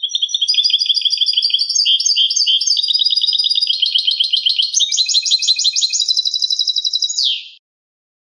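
European goldfinch singing one long, unbroken song of fast, high twittering trills and rattles that stops abruptly about seven and a half seconds in. It is a clean song, of the kind played to tutor captive goldfinches.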